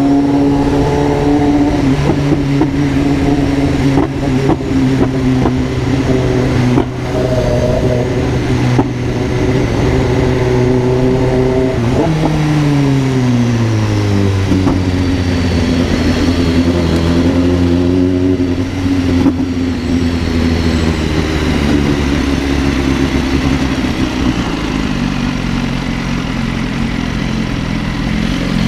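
Car engine with a straight-through 'granada' muffler, its exhaust droning loudly at steady revs. About twelve seconds in the revs fall smoothly over a couple of seconds, then hold steady at a lower pitch.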